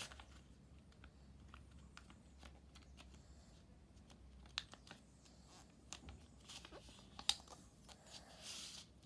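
A sheet of paper being folded and creased by hand: faint rustles and scattered light ticks, with a short swish of paper near the end.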